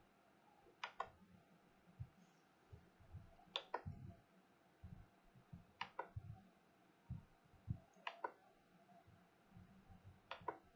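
Faint double clicks of a computer mouse, five pairs about two seconds apart, with soft low bumps between them over otherwise near-silent room tone.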